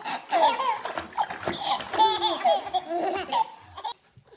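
Babies laughing in repeated high-pitched bursts, breaking off shortly before the end.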